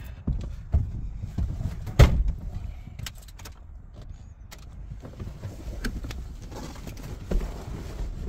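Rustling, knocks and clicks as a person climbs into a heavy truck's cab and settles in the driver's seat, with one loud thud about two seconds in. Light clicks and jingles follow as hands work around the steering column and ignition key.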